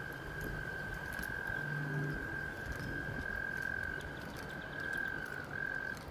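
A frog's long, steady, high-pitched trill, held unbroken for several seconds and stopping just before the end.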